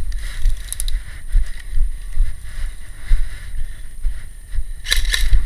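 Irregular low rumble of wind and movement on a head-mounted action camera as the wearer walks, with two sharp clicks near the end.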